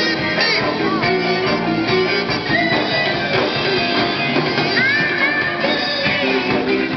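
Live band playing a western pop song, a guitar prominent, with a few high notes bending in pitch about halfway through.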